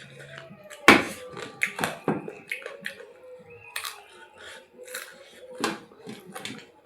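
Close-up eating sounds from chicken curry: chewing and lip smacks with a string of sharp clicks, the loudest about a second in.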